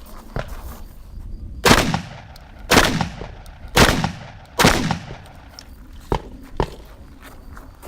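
Shotgun firing slugs: four loud shots about a second apart, each with a short echoing tail, followed by two lighter sharp knocks.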